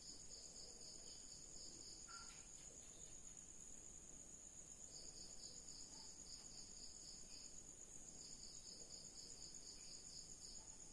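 Near silence with faint insect chirping: a steady high trill, and over it a pulsing chirp of about four beats a second that comes and goes in runs of two or three seconds.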